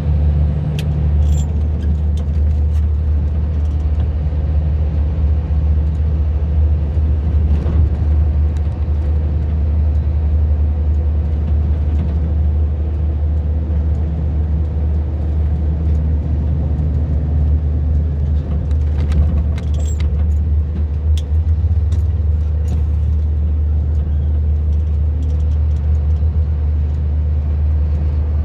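Steady low engine drone and road noise heard from inside the cab of a heavy vehicle as it drives, with light clicks and rattles now and then.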